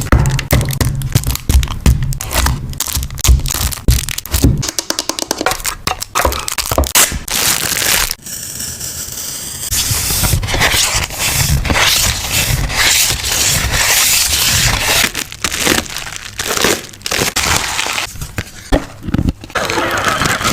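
Close-miked handling of paper journaling materials: a quick run of clicks and taps, then a steady scratchy rustle for about two seconds, then dense crinkling and rustling of paper or plastic.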